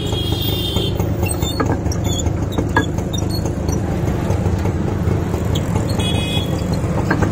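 Busy street traffic with a steady rumble. A short vehicle horn toot ends about a second in and another comes about six seconds in, with scattered light clicks between.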